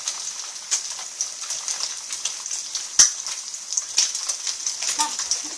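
Egg frying in oil in a frying pan, sizzling steadily with small crackling pops, and one sharp click about three seconds in.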